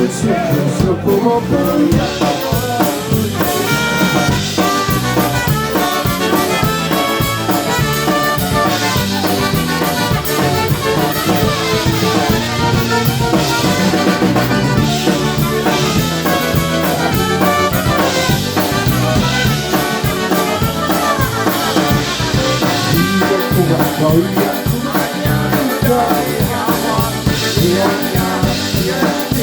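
Live polka band playing an instrumental stretch with a drum kit keeping a steady beat.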